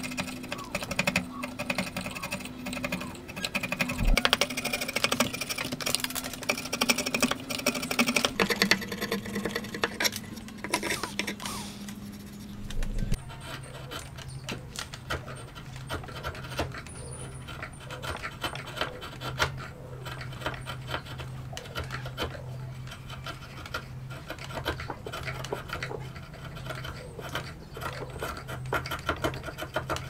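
Steel chisel paring and scraping hardwood by hand, a dense run of small scratching clicks as chips are cut away, busier in the first several seconds. A steady low hum lies underneath and drops in pitch about thirteen seconds in.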